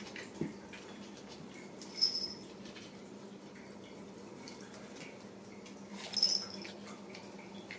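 A ragdoll kitten scuffling with sneaker laces on a tile floor: small scrapes and light clicks, with two short high squeaks, one about two seconds in and one near six seconds, over a steady low hum.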